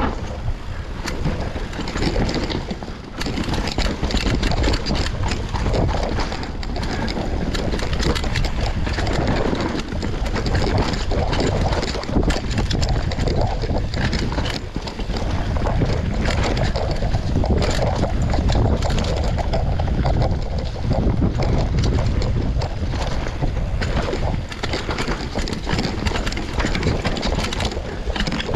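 Mountain bike ridden fast down a steep, rooty and rocky trail: a steady rush of tyres on dirt with frequent rattling and clattering as the bike hits roots and rocks, and wind buffeting the camera microphone.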